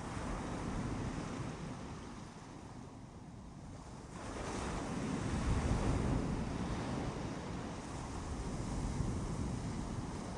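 Ocean surf: waves washing onto the beach, with a larger wave surging in about four seconds in and a smaller swell near the end.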